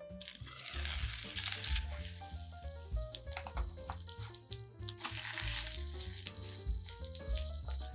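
Zucchini and egg batter frying in hot oil in a pan, sizzling. The sizzle flares up just after the start and again about five seconds in.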